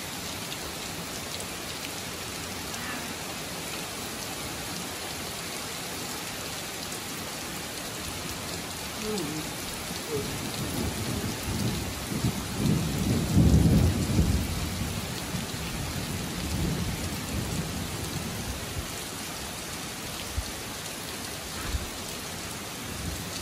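Heavy rain falling steadily on pavement and vehicles. A low rumble of thunder builds about ten seconds in, is loudest around halfway through, and dies away over several seconds.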